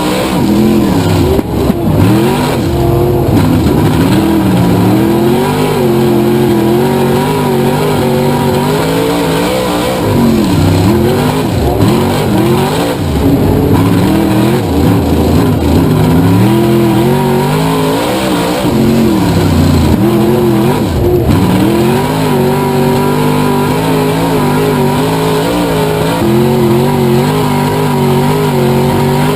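Race car engine on a dirt oval, loud and steady, its pitch climbing and then dropping sharply again and again every few seconds as it accelerates and lifts around the track.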